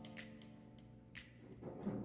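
Quiet background music with steady sustained instrumental tones, with a couple of faint clicks and, near the end, a short mouth-close bite sound as a piece of food is eaten.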